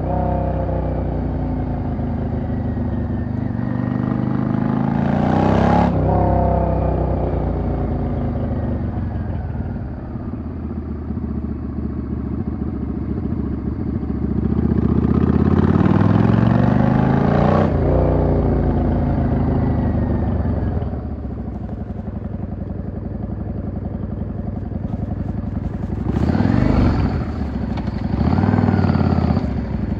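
Yamaha V-Star XVS650's air-cooled V-twin running under a rider: it pulls up in pitch, drops sharply at a gear change about six seconds in, then climbs again and drops at another shift. The engine then winds down and runs low and steady before two short throttle surges near the end.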